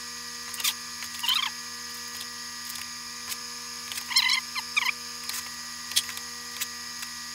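Wooden spring clothespins being clipped one after another onto the edge of a wooden model bridge truss as glue clamps: sharp clicks and short squeaky chirps, about one a second, over a steady electrical hum.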